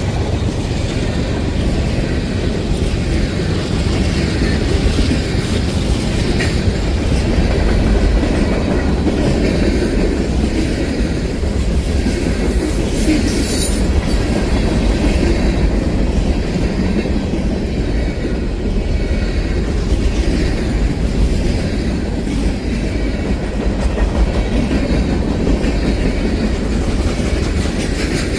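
Freight cars of a long CSX freight train rolling past steadily, wheels clattering over the rail joints, with a brief high squeal about halfway through.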